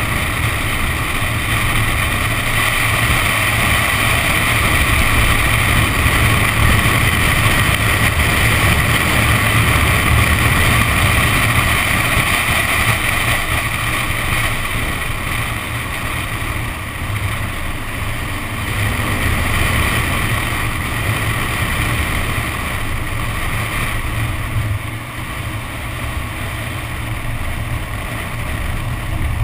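Nissan 370Z driving at speed on a flooded track, heard from a camera mounted outside on the car: the low drone of its V6 engine under wind on the microphone and the hiss of tyres through standing water. The noise is steady and eases a little near the end.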